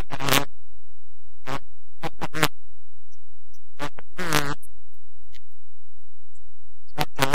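Steady low rumble of wind on the camera microphone of a Yamaha YZF600R Thundercat motorcycle riding at road speed, with a few short pitched sounds breaking through now and then.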